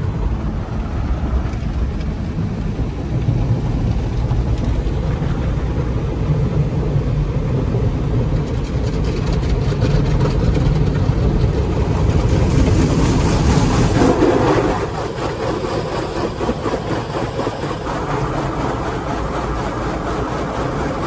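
Automatic tunnel car wash heard from inside the car's cabin: a steady low rumble with water and brushes working over the body. A louder hissing wash builds from about nine seconds in and drops off suddenly around fifteen seconds.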